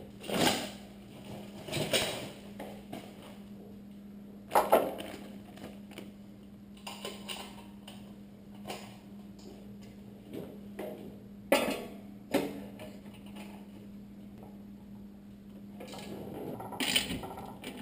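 Scattered metallic clinks and knocks from a Vance & Hines chrome slip-on muffler and its clamp being fitted by hand onto a motorcycle exhaust, a handful of separate strokes several seconds apart, over a faint steady hum.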